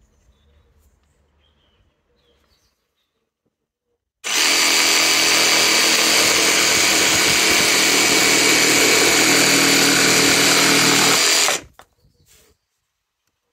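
Evolution cordless jigsaw starting about four seconds in and running at a steady speed for about seven seconds as it saws through a round wooden rod, then stopping suddenly.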